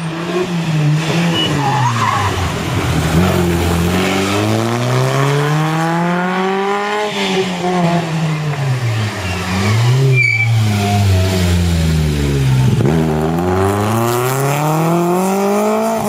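A rally car's engine revving hard through the gears, its pitch climbing in long sweeps and dropping sharply on gear changes and lift-offs for the bends, several times over. A brief tyre squeal comes about ten seconds in.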